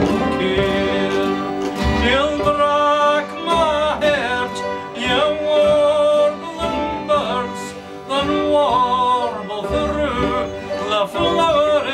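A man singing a slow folk song in long, wavering held notes, with guitar accompaniment.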